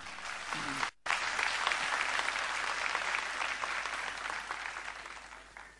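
Audience applauding, briefly cut off about a second in, then fading away near the end.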